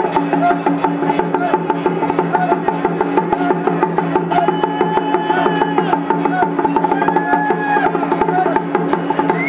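Temple-troupe percussion of drums, gongs and cymbals playing a fast, dense beat to accompany a Song Jiang martial array. The rapid strikes ride over gongs that ring steadily, and wavering higher tones come and go in the second half.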